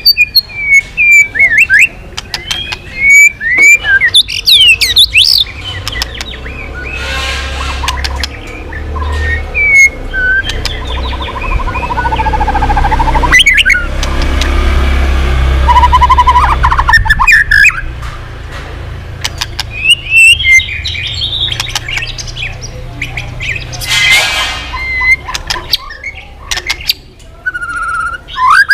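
White-rumped shama singing a varied, fast run of whistled glides, trills, clicks and harsh rasping notes. A low rumble sits under the song from about six to eighteen seconds in.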